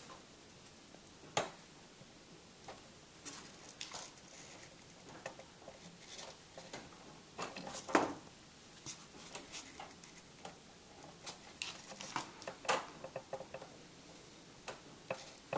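Faint, irregular small clicks and taps of HO scale plastic track and a stiff plastic insulating rail joiner being handled and worked onto a rail end, with a sharper click about halfway through.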